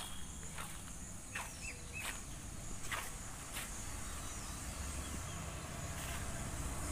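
Outdoor ambience: a steady low rumble with a faint high hiss, a few scattered soft clicks, and three short chirps about one and a half to two seconds in.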